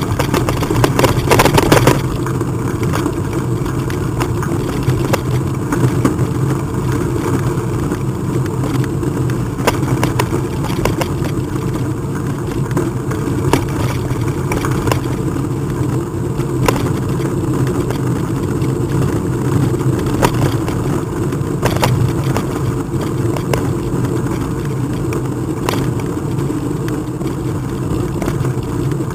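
Steady running noise of a moving bike, with short rattles and knocks scattered through it.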